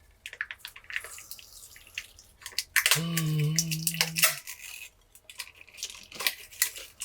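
Small irregular clicks and scrapes of a tool prying a part off inside a smartphone. A short hummed sound from a person about three seconds in.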